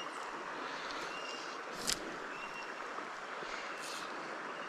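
Steady rush of a flowing mountain stream, with a single sharp click about two seconds in.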